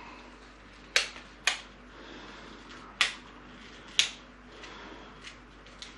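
Sharp clicks from handling a small packet of fridge magnets as it is opened: four loud ones, about a second apart with two close together early, among fainter ticks.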